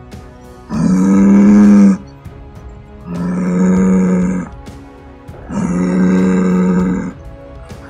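Cow mooing three times, each moo a long call held at a steady pitch, evenly spaced about two and a half seconds apart.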